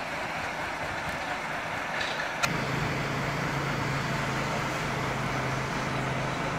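Outdoor traffic noise with a motor vehicle's engine running. A sharp click comes about two and a half seconds in, after which a steady low engine hum sets in.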